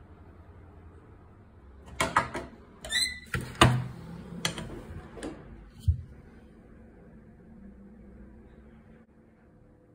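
Handling noise as a gold bar is moved from the balance to a Thermo XRF precious-metals analyser: sharp knocks and clicks between about two and six seconds in, with a short rattling scrape around three seconds. A low hum underneath.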